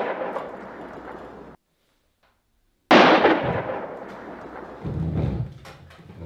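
A loud bang rings out with a long fading tail and is cut off abruptly; after a moment of dead silence a second loud bang hits about three seconds in and dies away slowly.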